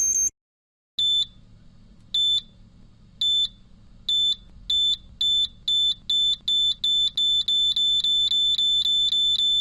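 Electronic bomb-timer beeping: a fast high beeping stops just after the start, then after a short gap a new series of single high beeps begins about a second apart and speeds up steadily until it is rapid near the end, where it cuts off suddenly. A faint low hum runs under the beeps.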